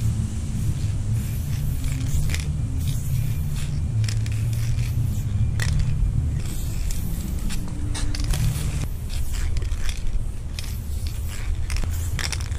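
Wind buffeting the microphone with a steady low rumble, over short hisses of an aerosol spray paint can being sprayed in bursts while an outline is sketched on a wall.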